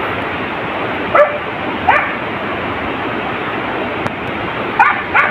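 Hunting dogs yelping in the undergrowth: four short, sharp, rising yelps, two in the first half and two near the end, over a steady hiss. The dogs are giving tongue where the hunter thinks they have found the wild boar.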